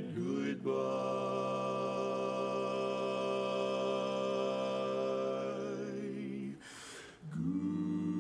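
Male barbershop quartet singing a cappella in close four-part harmony, holding one long ringing chord for about six seconds. After a short break near the end they start a new, lower chord.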